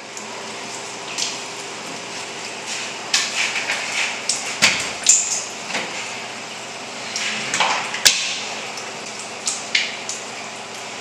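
Small clicks, knocks and splashes at a bathroom washbasin as toiletries and a plastic water bottle are handled and water is used, over a steady background hum.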